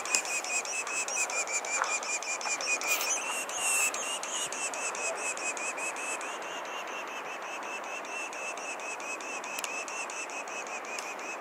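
An animal calling with a steady, fast pulsing chirr, many even pulses a second.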